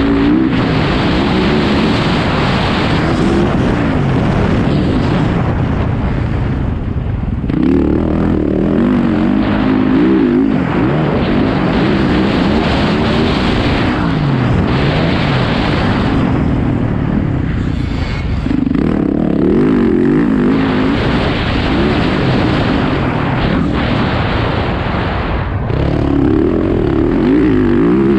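Motocross bike engine revving up and backing off over and over as the rider accelerates, shifts and slows around the track, with heavy wind rush on the helmet-mounted camera.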